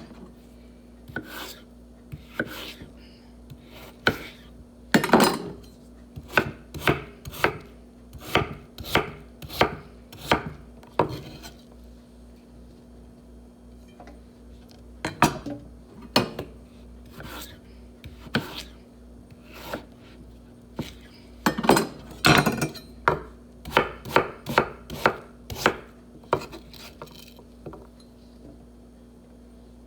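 Knife chopping vegetables on a cutting board, in irregular runs of sharp strokes with short pauses between them.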